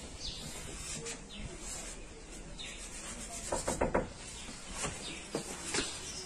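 Soft irregular scuffs and rubbing noises over a steady outdoor hiss, with a cluster of quick scrapes a little past halfway.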